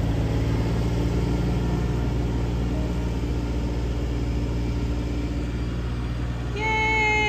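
Tractor engine running steadily under load as it tows a pickup truck out of mud. Near the end a short high tone sounds for about a second, dipping slightly in pitch.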